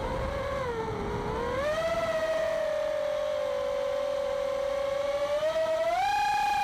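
Electric motors and propellers of a small FPV drone whining, heard from its onboard camera. The pitch dips and wavers low in the first two seconds, holds steady, then rises with the throttle about six seconds in.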